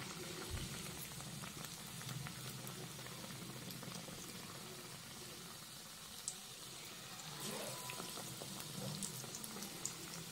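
Batter-coated potato slices deep-frying in hot oil: a steady bubbling sizzle with fine crackles.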